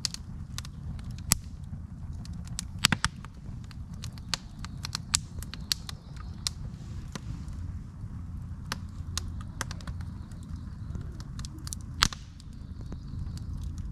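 Wood campfire crackling, with sharp snaps and pops at irregular intervals over a low steady rumble; a few louder pops stand out, the loudest about twelve seconds in.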